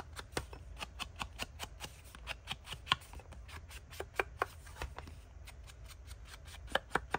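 A round ink blending tool dabbing and brushing Distress Oxide ink onto the edges of a cardstock panel: a quick, irregular run of soft taps on the paper, with a sharper tap about three seconds in and a couple more near the end.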